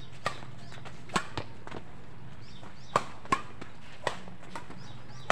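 Badminton rackets striking a shuttlecock in a fast doubles rally: a series of sharp, short smacks about once a second, two of them close together near the middle.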